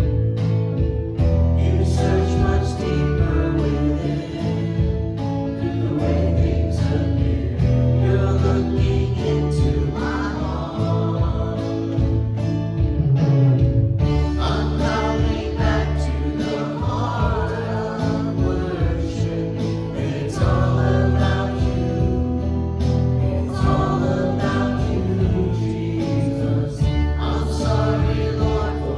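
Live worship music: a band playing a contemporary Christian song with several voices singing together.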